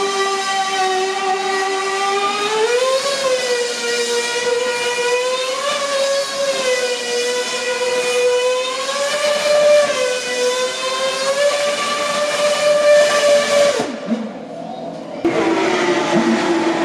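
Racing car engine at high revs, holding a high, steady pitch with a few small rises, then dropping away suddenly near the end. After a short lull a lower-pitched engine comes in.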